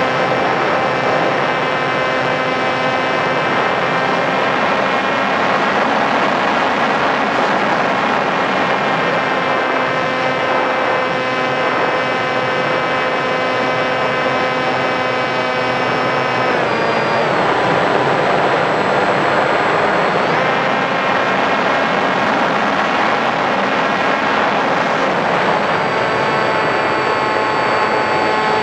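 Sky Surfer RC glider's electric motor and pusher propeller whining at steady throttle, with a rush of air past the onboard camera. The pitch steps down about 17 seconds in, comes back up a few seconds later and shifts again near the end.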